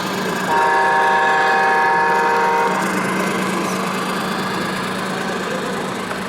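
Radio-controlled model vehicle running with a steady hum. About half a second in, a steady note of several tones on one held pitch sounds for about two seconds and then cuts off.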